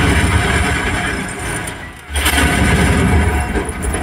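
Loud action-film soundtrack playing through cinema speakers: a heavy low rumble of explosions and effects. It drops away briefly about two seconds in, then comes back.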